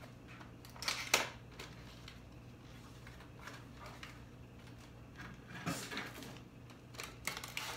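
Rustling and crinkling of clear plastic packaging being handled and pulled open, with a few sharp clicks and taps. The loudest crackle comes about a second in, another cluster near six seconds.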